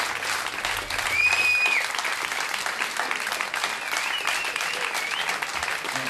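Audience applauding, with two loud whistles from the crowd: a steady one held for under a second, about a second in, and a wavering one a few seconds later.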